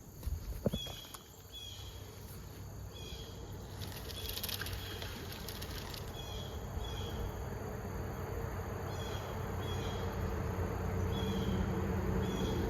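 A small bird chirping in short high notes, mostly in pairs, every two or three seconds, over a low steady hum that slowly grows louder toward the end.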